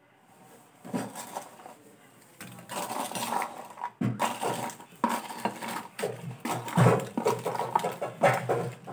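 Light, brittle fried crackers (kerupuk) rattling and clinking as they are tipped from a plastic container onto a ceramic plate. A few clicks come about a second in, then dense, irregular clattering from about two and a half seconds in.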